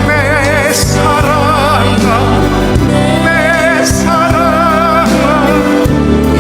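Music: a Korean pop ballad, with two long held notes sung with heavy vibrato over a steady backing band.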